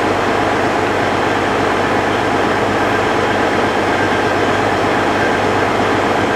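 Tractor engine running steadily under a constant, loud mechanical noise, with no change in speed; the sound cuts off suddenly at the very end.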